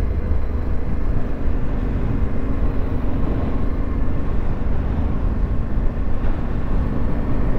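Yamaha Ténéré 700's parallel-twin engine running steadily as the motorcycle is ridden along a dirt track.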